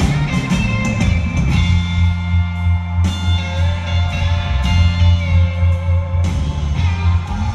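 Live band playing a slow blues number, heard from the arena seats, with electric guitar taking the lead over bass and drums and no vocal.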